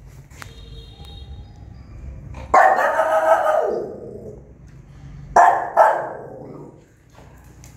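A small white nursing mother dog barking: one long, drawn-out bark about a third of the way in, then two quick barks in close succession a little later.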